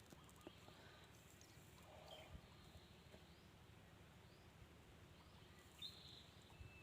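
Near silence: faint outdoor ambience at a river mouth, with a few brief, faint high chirps.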